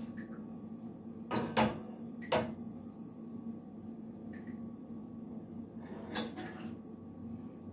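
Kitchenware set down on a wooden cutting board, most likely the glass pan lid: a few sharp knocks, two close together about a second and a half in and another a second later, then a fainter clink near the end.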